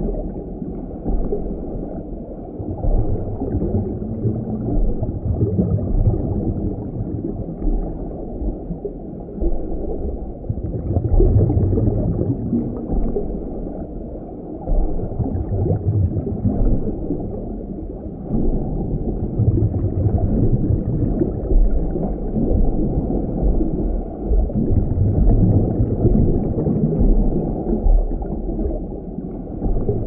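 Underwater sea ambience heard through an underwater microphone: a dense, muffled rumble and gurgle of moving water, swelling and ebbing every few seconds.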